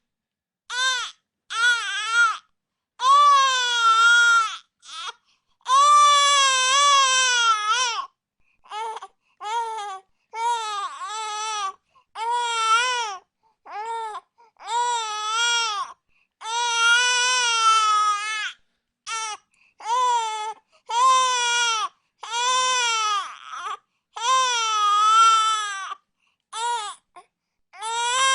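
A baby crying hard in repeated wails, each cry wavering up and down in pitch, broken by short pauses for breath.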